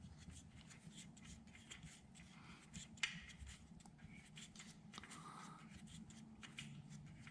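Faint metal clicks and scraping as the oil drain bolt is threaded back in and tightened with a hand tool, with one sharper click about three seconds in.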